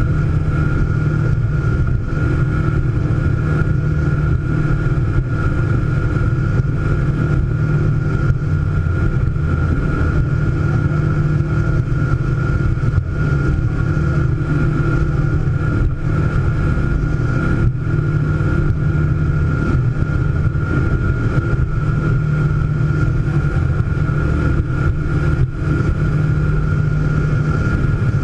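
Scarab powerboat's engine running steadily while the boat cruises at an even speed: a constant low drone with a thin, steady high whine above it.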